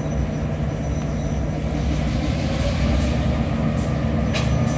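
Steady low rumble of a train on the move during a rail transfer, with a short sharp click about four seconds in.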